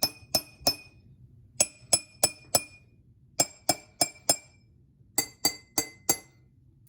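A spoon tapping a row of water-filled drinking glasses, about four quick taps per glass, each tap a clear ringing tone. Each group of taps is lower in pitch than the last, running from the glass with the least water to fuller ones: the more water in the glass, the lower the pitch.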